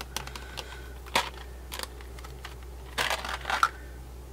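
Handling of a small plastic bead box and beads: a few short, sharp clicks and taps, the loudest about a second in and about three seconds in, over a low steady hum.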